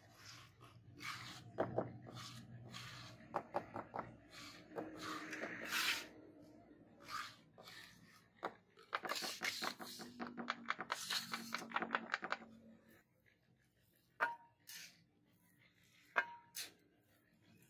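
Steel trowel scraping and smoothing wet cement mix in a wooden tile mould, a long run of scraping strokes. Near the end come two sharp metal taps, each with a brief ring.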